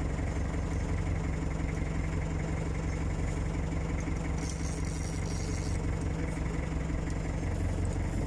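Engine of a small wooden fishing boat running steadily, an even low hum that does not change, with a brief hiss about halfway through.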